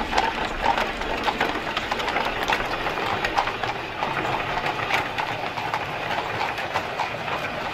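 Horse-drawn carriage on the move: hooves clopping and wheels rattling in a dense, continuous run of clicks and knocks.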